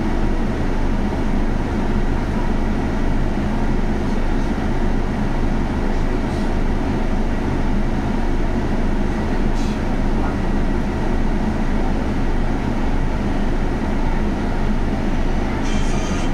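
Cabin noise inside a Scania Castrosua New City articulated natural-gas (CNG) bus with a ZF Ecolife automatic gearbox: the engine and drivetrain drone steadily as the bus drives along, with a couple of faint rattles and a brief hiss near the end.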